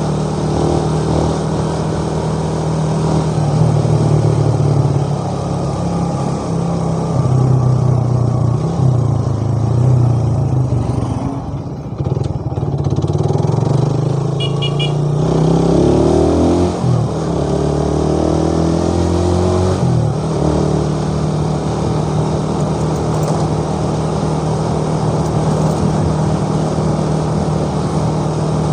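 Motorcycle engine running while riding, its pitch rising and falling with the throttle. A brief series of high pips comes about halfway through.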